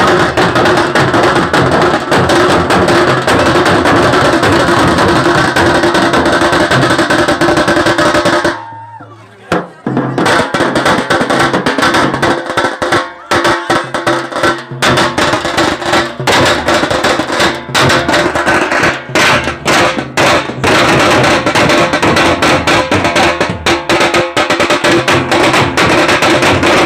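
Procession drums beaten with sticks in a loud, dense rhythm, with crowd voices mixed in. About a third of the way in the drumming stops for about a second, then starts again.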